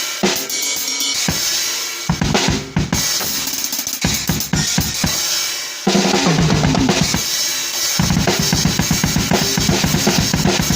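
Acoustic drum kit played solo, unprocessed: bass drum, snare and cymbals in fast extreme-metal patterns. The drumming settles into a very fast, even run of strokes about eight seconds in, as in blast-beat and ankle-technique bass drum practice.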